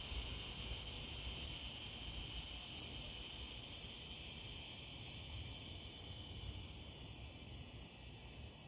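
Faint insects chirping: a steady high buzz with short, higher chirps about once a second, over a low background rumble.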